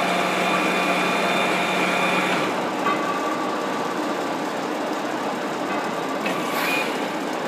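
Large Poreba TCG 160 engine lathe running with its spindle turning at about 125 RPM: a steady mechanical hum and gear noise. A set of steady whining tones drops away about two seconds in, and the running noise continues.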